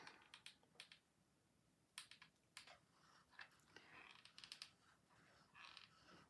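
Faint, irregular clicks and taps as a hot glue gun is squeezed and moved around the rim of a plastic dome on cardstock.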